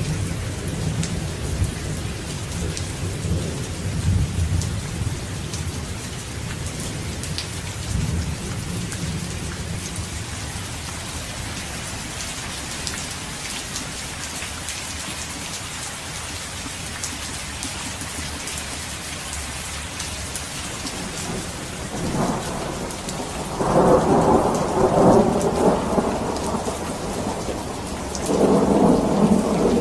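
Steady rain falling, with thunder. A low rumble of thunder fades away over the first ten seconds or so. From about two-thirds of the way through, louder rolls of thunder crack and rumble, and they come again near the end.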